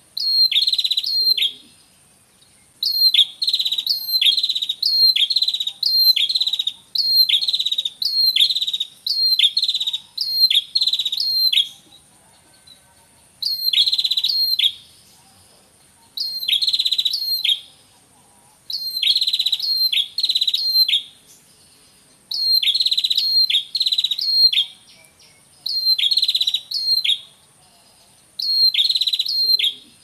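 A male and female prenjak kepala merah (red-headed prenjak, a small rufous-crowned warbler) calling together: sharp, high calls in phrases about a second long, repeated one after another with short breaks. This is the pair's natural call as used to lure the species.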